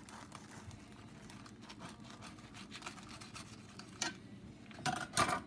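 Kitchen knife sawing through a griddle-toasted tortilla wrap on a plate: faint crackly scraping strokes, with a few louder scrapes or knocks about four seconds in and near the end.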